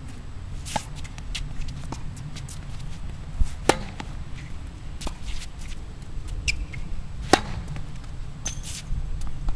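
Tennis rally on a hard court: rackets striking the ball back and forth, with the ball bouncing in between. It comes as a string of sharp pops, the loudest about three and a half and seven seconds in.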